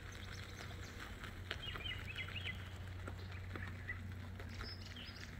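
A songbird singing a quick run of chirpy phrases between about one and a half and two and a half seconds in, with a few fainter calls later. Under it runs a steady low hum and a few faint clicks.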